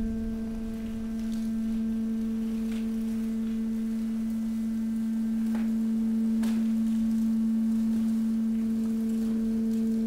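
Hydraulic waste compactor running, its pump giving a steady hum while the ram pushes mixed waste, with a few faint clicks and crackles.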